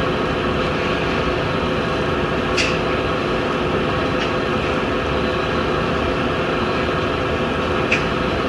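Boiler running: a steady mechanical hum and rush with a few even tones in it, broken by three brief ticks, the loudest near the end.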